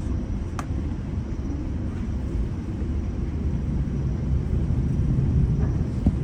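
GO Transit bilevel passenger coach running at speed, heard from inside: a steady low rumble of wheels on the rails, growing a little louder toward the end, with one sharp click about half a second in.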